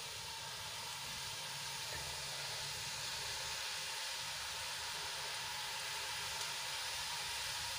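Strands of gram-flour sev dough frying in hot oil in a kadai: a steady sizzle. It grows a little louder over the first few seconds as more dough is pressed into the oil, then holds steady.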